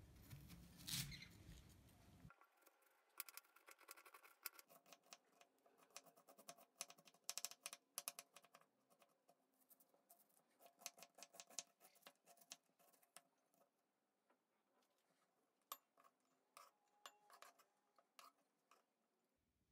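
Chef's knife chopping a peeled onion on a bamboo cutting board: a long run of faint, quick knife taps on the wood, thinning out near the end.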